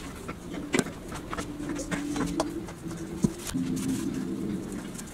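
A metal bench scraper knocking sharply on the countertop as it cuts dough, loudest about a second in and again near the middle, over a low wavering tone in the background.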